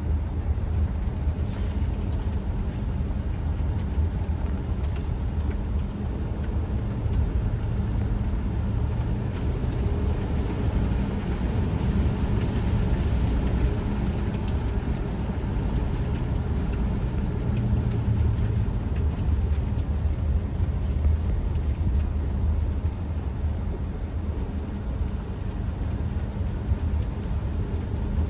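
Steady low rumble of a vehicle driving, heard from inside the cabin: engine and tyre noise with no break or change.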